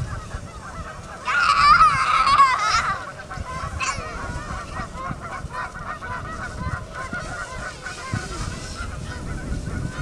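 A flock of geese honking, with a loud burst of many overlapping calls from about one to three seconds in, then scattered calls.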